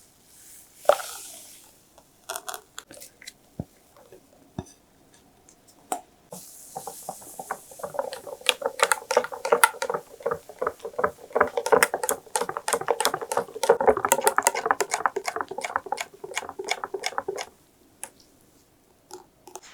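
Whisk beating a wet mixture in a bowl, with a fast, even run of clicking strokes lasting about ten seconds. A few separate knocks and clinks of utensils come before it.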